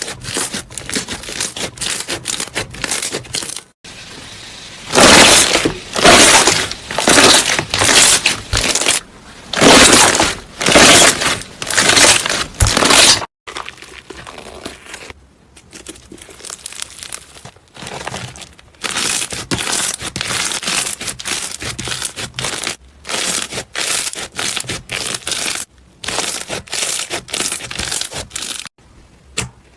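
Slime being squeezed and pressed by hand close to the microphone: a run of crackling, squishing bursts at about one to two a second. The bursts grow much louder for several seconds in the middle, then return to a softer run of squishes.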